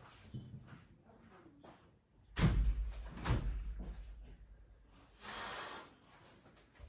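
A low, heavy thump about two and a half seconds in, a lighter knock just under a second later, and a short hiss about five seconds in.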